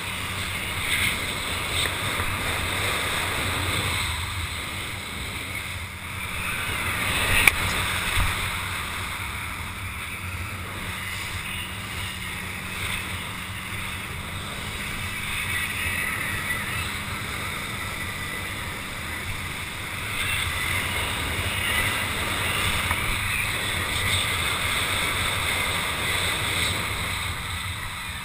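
Water rushing and hissing under a rider towed behind a boat, with wind buffeting the helmet-mounted camera's microphone. A sharp knock about seven and a half seconds in and another just after.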